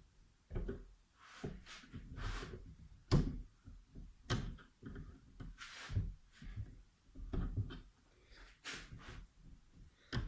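Irregular knocks and clatter of metal scooter parts and tools being handled and set down during disassembly of the variator, about a dozen separate short hits with the loudest about three seconds in.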